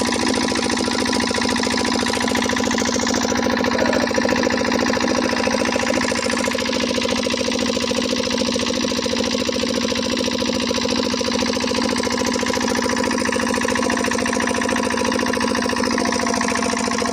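Diesel pump-set engine running steadily at a constant speed, with a fast, even beat.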